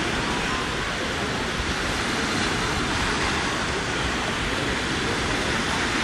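Steady seaside noise of surf and wind, with wind rumbling on the microphone.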